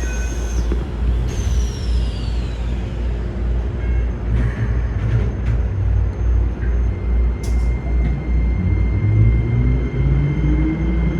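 Keikyu 1000-series electric train's traction motors running with a loud, low rumble and an even pulsing. This set is known for its unusually loud motor noise. A high whine falls in pitch early on, and in the last few seconds several tones rise together as the train picks up speed.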